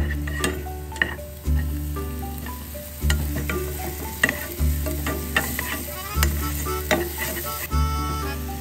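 Chopped onion and garlic sizzling in olive oil in a saucepan, stirred with a wooden spatula that scrapes and taps against the pan. A low bass note from background music repeats about every one and a half seconds.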